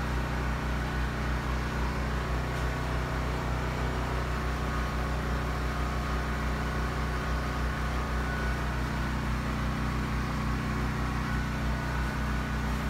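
Steady low machine hum with a deep, even drone from the grooming trailer's running generator.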